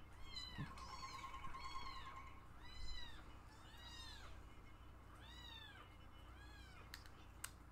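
Pet cats meowing over and over: about eight short meows, each rising then falling in pitch. Two sharp clicks come near the end.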